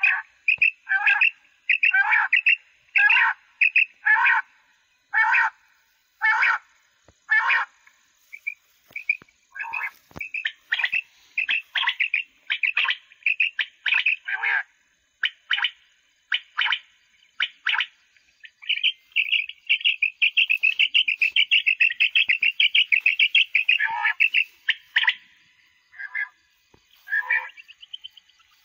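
Quail calls played back through a battery-powered electronic quail caller used to lure quail: loud short calls repeated about once a second, then a fast run of rapid notes for about six seconds past the middle.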